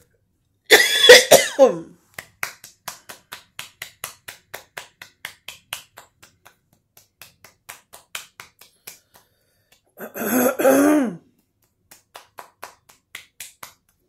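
A woman coughs twice: once about a second in and again about ten seconds in, each cough falling in pitch. Faint quick clicks, about three a second, run between and after the coughs.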